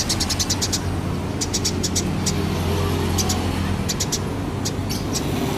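Eurasian tree sparrows chirping in quick runs of short, high chirps, several runs a few seconds apart, over a steady low rumble of traffic or an engine.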